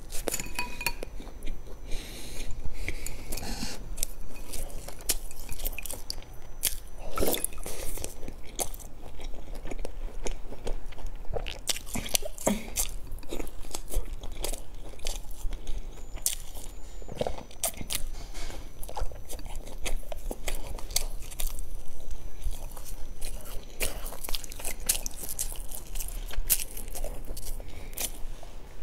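Close-miked chewing and biting of baked bread with a sausage and cheese topping, with many small crunches and wet mouth clicks throughout.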